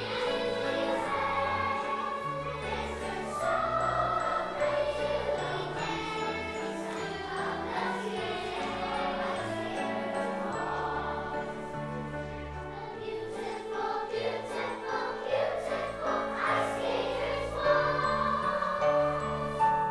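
Third- and fourth-grade children's chorus singing a holiday carol, many young voices together, over instrumental accompaniment with low held bass notes that change every second or two.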